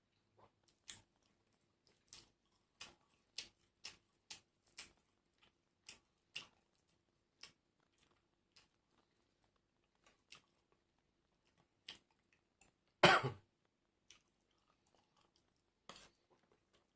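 Close-up chewing of crunchy food, crisp crunches about two a second at first, then sparser. One much louder short noise about thirteen seconds in.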